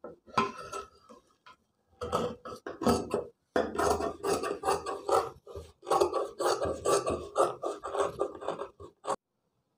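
Large tailor's scissors cutting through a coat's fabric: a quick run of snips, the blades clicking and the cloth rasping as they close, with a brief pause about three and a half seconds in, stopping just after nine seconds.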